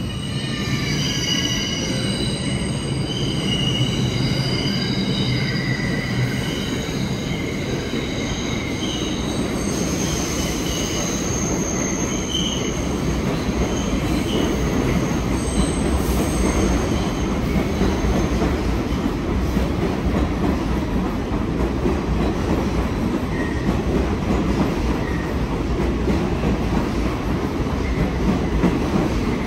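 Bombardier R62A subway train running on the rails, its wheels squealing in several high tones through the first dozen seconds over a steady rumble, which then carries on alone.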